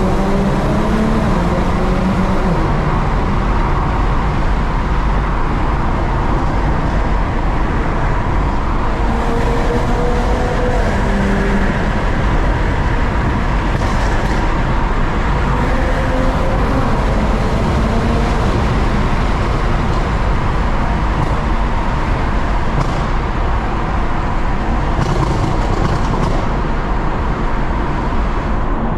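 BMW M340i's turbocharged 3.0-litre straight-six pulling hard under acceleration. Its note rises in pitch three times as it climbs through the revs, over a steady heavy rush of road noise.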